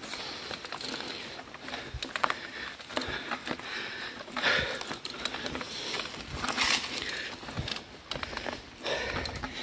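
Mountain bike rolling over a loose gravel and stone track: tyres crunching, with irregular clicks and rattles.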